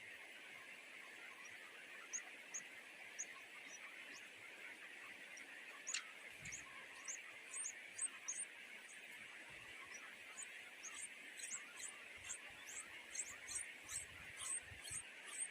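High, thin bird chirps, a few scattered at first, then repeating quickly, about two or three a second, from about ten seconds in. Under them is a steady high background hiss.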